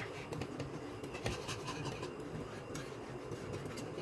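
Wire whisk scraping and clicking against a frying pan as it stirs a thin white sauce, a quick run of irregular scratchy strokes.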